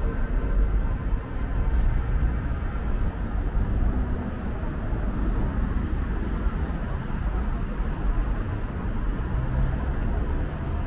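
City street ambience: a steady rumble of road traffic, with no single event standing out.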